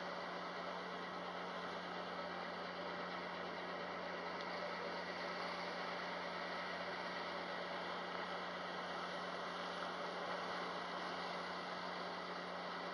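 Passenger ferry underway at sea: a steady low engine hum under a constant rush of wind and wake water.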